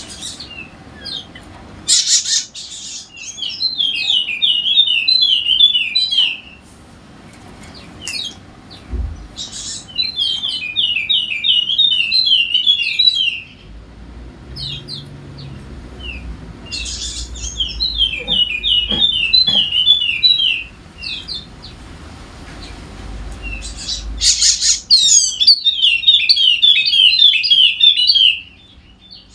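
Yellow-spectacled white-eye (pleci Wallacea) in full song: four bouts of fast chattering song, each a few seconds long and coming about every seven seconds. Each bout is led in by sharp high calls.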